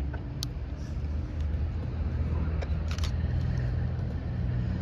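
Low, steady diesel rumble of a distant locomotive, with a few faint sharp clicks.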